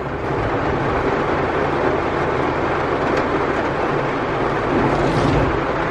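Heavy monsoon rain drumming steadily on a car's roof and windows, heard from inside the closed car.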